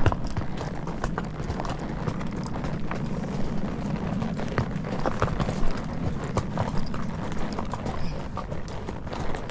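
Horse walking, its hooves clopping in irregular knocks several times a second over a steady low rumble.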